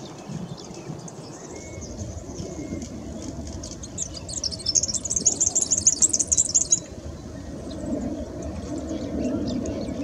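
A bird singing a rapid, high trill for about three seconds, starting about four seconds in, over a steady low rumble.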